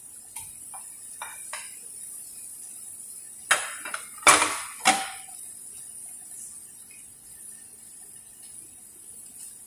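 A spatula clicking and knocking against a nonstick frying pan as a block of butter is pushed off it onto the shrimp: a few light clicks, then three sharp knocks close together in the middle. A faint, steady high hiss runs underneath.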